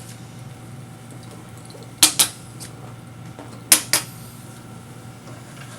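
Two pairs of sharp clicks, like hard objects knocked or set down, about two seconds in and again about a second and a half later, over a steady low hum.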